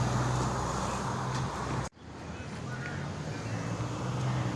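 Heavy road-construction machinery running steadily, a low engine hum with road-work noise over it. The sound cuts out abruptly about two seconds in, then the engine hum comes back.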